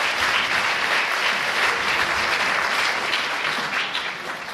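Audience applauding after a live song, the clapping dense and steady, then fading near the end.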